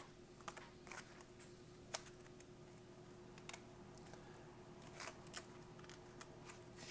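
Faint, scattered crinkles and clicks of a foil-laminate MRE crackers pouch being handled in the hands, over a faint steady hum.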